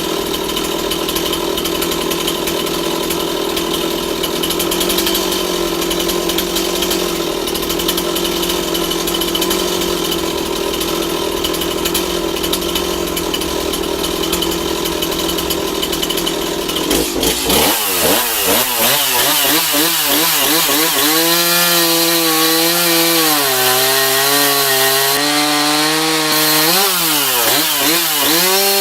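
STIHL MS 260 two-stroke chainsaw running at a steady engine speed. About two-thirds of the way in, the note changes suddenly and the engine pitch starts swinging up and down, as the throttle is worked and the chain goes into the wood under load.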